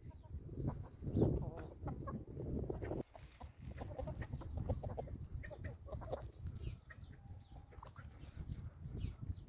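Chickens clucking, short calls scattered through, over a steady low rumble; the sound drops abruptly about three seconds in.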